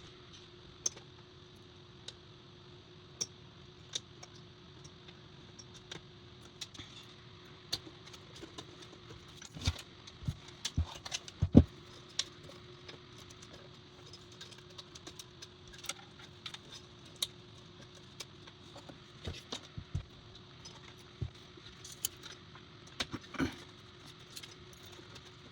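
Scattered small clicks and taps of fan cables and plastic connectors being handled and plugged onto motherboard headers, with a louder knock about halfway through, over a faint steady hum.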